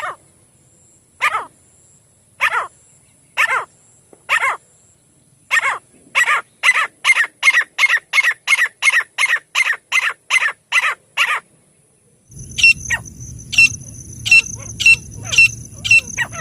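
A francolin (teetar) gives a series of sharp, repeated calls. They start about a second apart, then speed up to about three a second before breaking off. After a brief gap, thinner, quicker calls continue over a low background hum.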